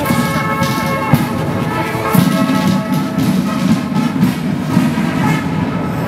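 Marching military brass band playing sustained chords, with a steady low rumble underneath. The brass is strongest in the first few seconds and grows fainter after.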